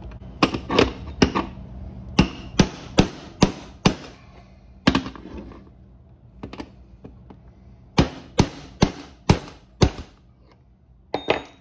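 Hammer blows on a steel military ammo can's lid latch: sharp metallic strikes in quick runs of three to five, about two or three a second, with a pause of about three seconds in the middle, as the sealed, stuck lid is worked open.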